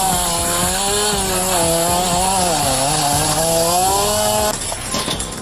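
Two-stroke petrol power saw cutting into a front door to force entry. The engine note wavers and dips as the blade bites under load, then the saw stops about four and a half seconds in.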